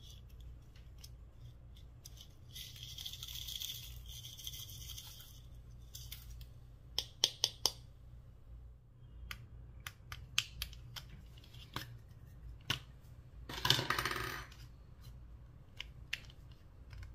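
Gold plastic sequins poured from a small plastic box, rustling and pattering onto the slime tray for a few seconds. Then sharp clicks and taps of small plastic containers being handled, three close together about halfway through, and a short scraping rustle near the end.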